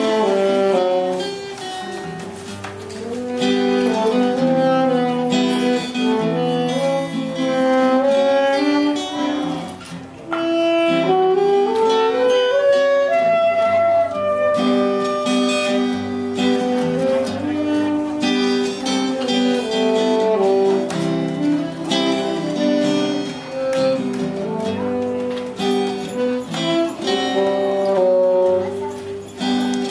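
Instrumental music: a solo melody of held notes and quick runs, including a rising run about ten seconds in, over a steady lower accompaniment.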